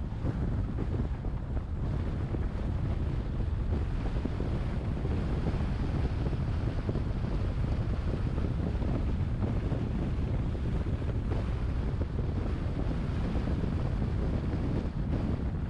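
Steady driving noise from a moving car: wind buffeting the microphone over road and tyre noise, mostly deep and even throughout.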